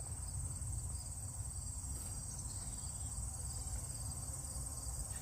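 Insects trilling steadily at a high pitch, a fast even pulsing that does not let up, over a low rumble.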